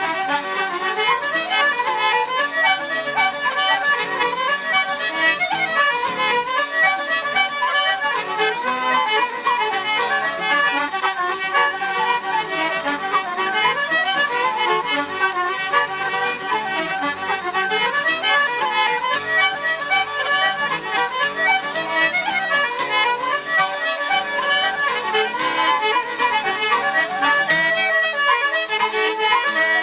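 Instrumental Irish traditional reel set played by a band, with a fiddle prominent in a fast, unbroken run of notes.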